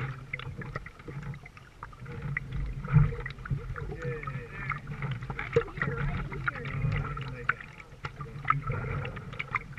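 Canoe paddle strokes in river water: the blade dipping, pulling and lifting out, with small splashes, drips and gurgling around the hull.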